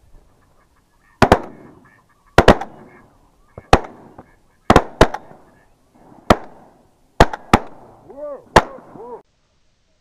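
A rapid series of about ten shotgun shots, some in quick pairs, each trailing off in an echo. Near the end a few honking waterfowl calls rise and fall between the shots, and the sound cuts off abruptly.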